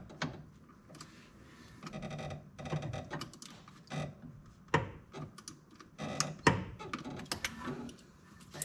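Metal hand tool clicking and knocking against battery terminal hardware as the cable ends are fastened onto the battery posts. Scattered sharp clicks, some in quick runs, with brief scrapes between them.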